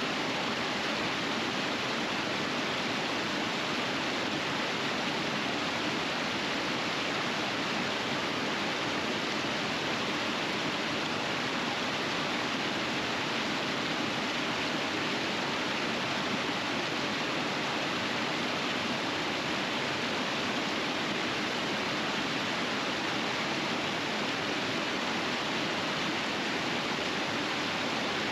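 River water rushing over rapids: a steady, even roar of flowing water that does not change.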